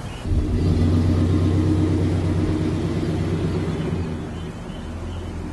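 A vehicle engine running with a steady low hum that starts abruptly about a quarter second in and eases off after about four seconds.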